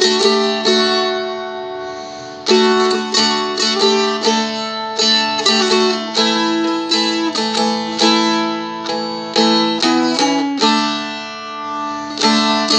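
Seagull Merlin, a four-string strumstick-style dulcimer in open D, strummed in chords over its ringing drone strings, with a few chord changes and one chord left ringing early on for about a second and a half.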